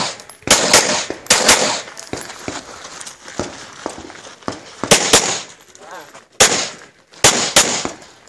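Handgun shots fired in quick pairs, about nine in all, each with a short echo, with a pause of about three seconds between the second and third pairs.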